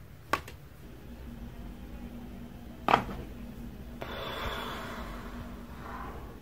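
Two sharp joint cracks about two and a half seconds apart, the second louder, then a soft rush of noise lasting about two seconds.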